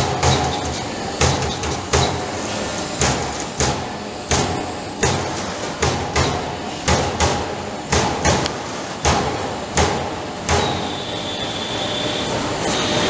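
Trumpf TruMatic 200 Rotation CNC punch press punching sheet metal: sharp hits at an uneven pace of one or two a second over the steady running of the machine. About ten seconds in, the punching stops and a steady high whine follows.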